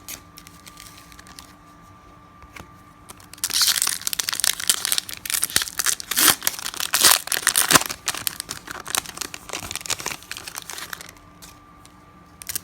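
Old trading cards stuck together from an aged 1999 Fleer Ultra pack being pried and peeled apart: a dense crackling and tearing that starts a few seconds in and goes on for about seven seconds.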